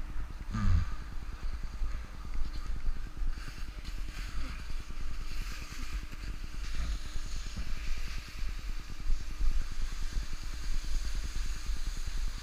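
Wind rumbling unevenly on the camera microphone during a downhill ski run, with the skis hissing and scraping over the snow.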